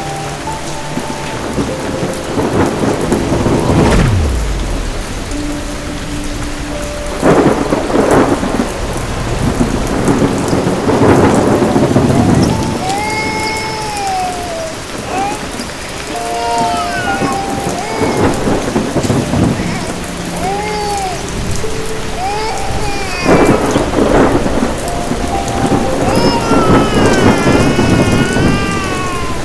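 Heavy rain with several rolls of thunder, the biggest near the start and again around a quarter and three-quarters of the way through. Faint pitched tones, some held and some arching up and down, are laid over the storm.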